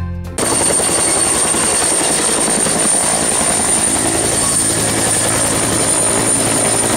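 Helicopter with a two-bladed main rotor hovering: rapid rotor-blade chop over a steady high turbine whine, starting abruptly about half a second in.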